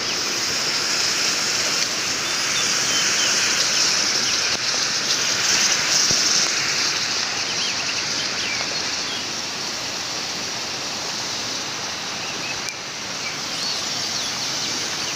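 Outdoor forest ambience: a steady high-pitched hiss that swells between about three and seven seconds in, with scattered short bird chirps.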